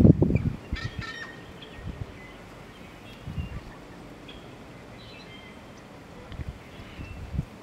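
Male American bittern's deep, gulping display call, the low 'onk' notes loudest at the very start, with quieter ones near the middle and near the end. Thin, high songbird chirps sound around a second in and again a little later.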